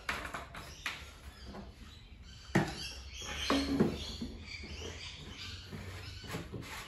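Handling noises: a few sharp clicks and light knocks as a plastic fuel bottle is set down and hands work at the mower's fuel cap. Birds chirp faintly in the background.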